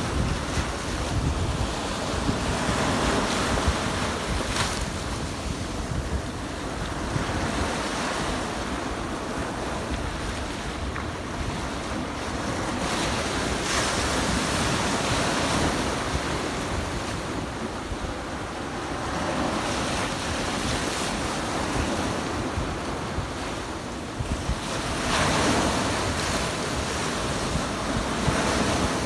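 Sea surf washing onto a beach, rising and falling in slow surges as waves break, with wind buffeting the microphone.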